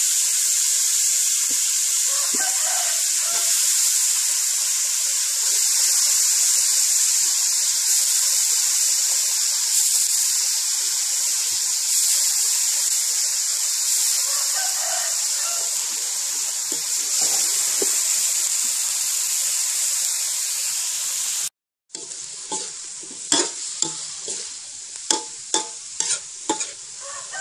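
Cauliflower and minced pork sizzling in a hot metal wok, a steady loud hiss. After a brief break near the end, a metal spatula scrapes and clacks against the wok about twice a second as the food is stir-fried.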